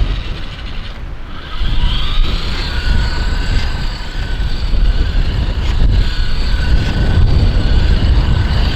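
Battery-powered 1/10 scale RC toy car's electric motor whining as it is driven, the whine rising in pitch about two seconds in, over a steady low rumble.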